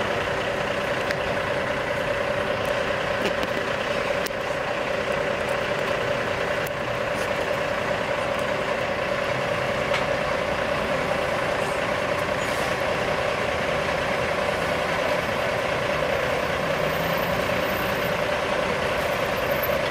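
Heavy Western Star truck's diesel engine idling steadily as the truck rolls slowly along under a man's pull.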